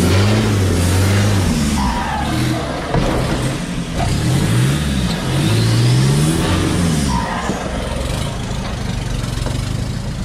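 Off-road 4x4 engine revving up and down again and again, its pitch rising and falling in repeated surges, as the vehicle is worked over a rocky trail.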